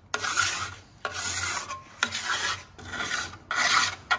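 Flat hand file scraping along a chainsaw bar's rails, five long strokes at about one a second. The file is taking down spread, rolled-over metal on the worn rails to dress them back to one flat plane.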